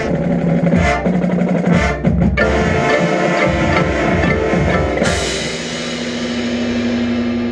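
Marching band playing with drums and pit percussion, sounding the closing bars of its field show. About five seconds in it lands on a loud hit and holds a final chord that slowly fades.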